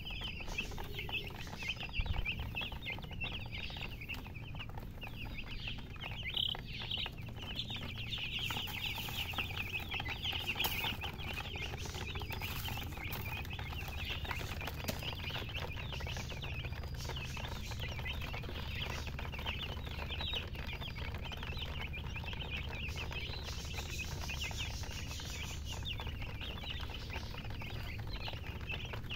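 A group of baby chicks chirping continuously, many short, high peeps overlapping, over a steady low hum.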